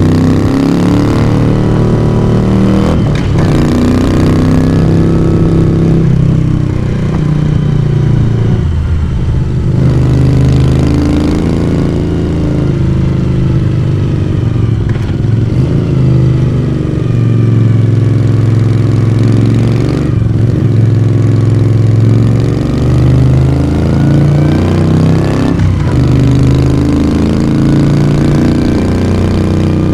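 Moto Guzzi V35's air-cooled transverse V-twin engine and exhaust under way, the revs rising and falling again and again, with brief breaks every few seconds where the gears are changed.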